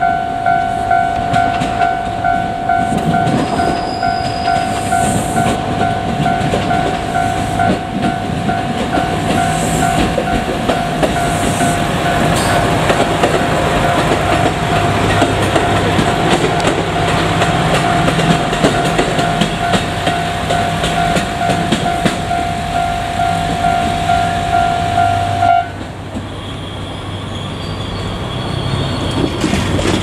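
A Japanese level-crossing warning bell rings steadily and repeatedly while a JR Kyushu KiHa 200 diesel railcar approaches and passes, its diesel engine and running gear rumbling. The bell cuts off about 25 seconds in, leaving the railcar's engine running as it draws away.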